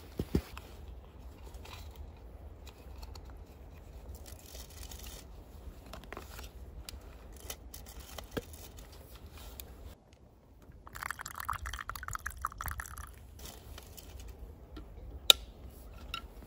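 Close handling sounds of a thermos flask being opened: scattered small clicks and light crunches, then a couple of seconds of hot drink pouring from the flask into a plastic camping cup a little past the middle, followed by one sharp click.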